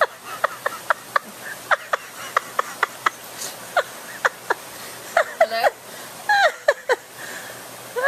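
A quick run of sharp tongue clicks, about a dozen over four or five seconds, then two short vocal sounds that waver in pitch about five and six seconds in.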